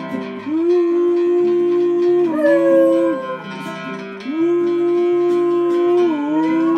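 Acoustic guitar being strummed while a man sings long held notes, and a small dog howls along with its muzzle raised.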